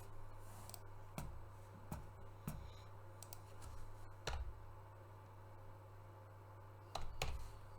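Irregular, scattered clicks of a computer mouse and keyboard, about nine in all, with a close pair near the end the loudest, over a steady low hum.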